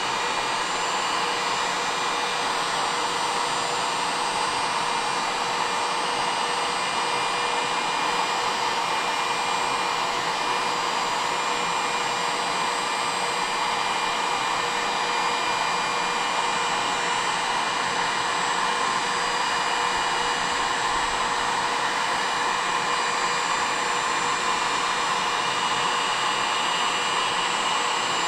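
Electric hot-air blower running steadily: a constant rush of air with a faint motor whine, heating the ATV engine case so the bearing bore expands for the frozen crankshaft.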